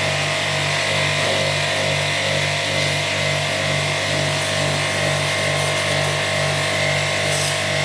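Electric jet-wash pump (pressure washer) running steadily with a motor hum and a constant hiss of water spray, jet-cleaning an air conditioner.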